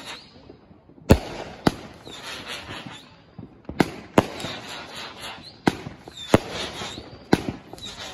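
Brothers Pyrotechnics Cobalt Bomb 500-gram firework cake firing shot after shot: about seven sharp bangs at uneven intervals, with a hiss between them.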